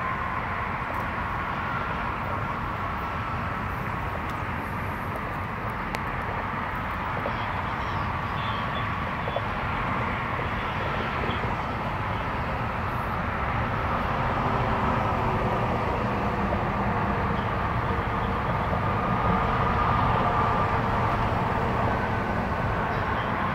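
Steady rumble of road traffic and idling vehicles, with a faint whine that wavers slightly in pitch.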